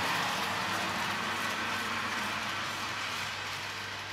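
Model railway train running along the track, its rumble and rail clatter fading steadily as it moves away, with a low steady hum underneath.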